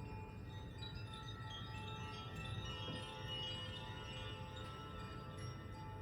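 Chimes ringing: many overlapping high, clear tones struck in a loose cascade and left to sustain, fullest around the middle, over a steady low hum.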